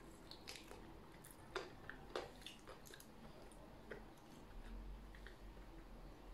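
Faint chewing and wet mouth clicks of a person eating chicken off the bone, with two sharper clicks about one and a half and two seconds in.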